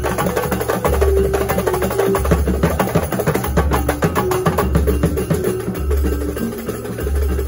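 Kuntulan percussion ensemble: many hand-struck frame drums (rebana) and large barrel drums playing a fast, dense interlocking rhythm, with a deep boom recurring about once a second.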